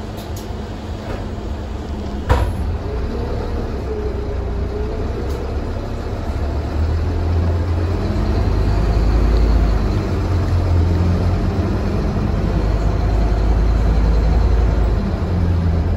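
Scania K320UB city bus's rear-mounted diesel engine and drive noise heard from inside the cabin as the bus drives. The engine grows louder, pulling harder, from about halfway through. A single sharp click sounds about two seconds in.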